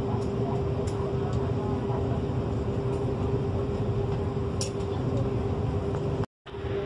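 TurboJet high-speed ferry running under way: a steady engine drone with one constant mid-pitched hum over a low rumble. The sound cuts out for a moment near the end.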